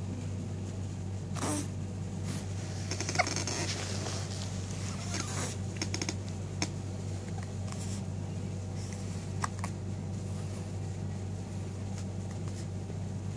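Baby hiccuping: a few short, sudden hiccups a second or several apart, over a steady low hum.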